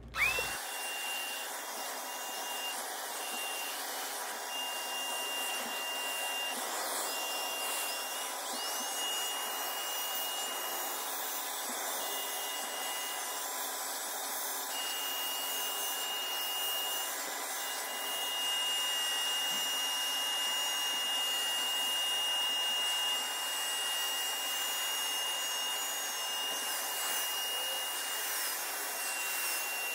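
Bissell upholstery cleaner's suction motor switching on with a quick rising whine, then running steadily as its hose tool is worked over a fabric sofa, sucking up water and dirt. It gets a little louder about two-thirds of the way through.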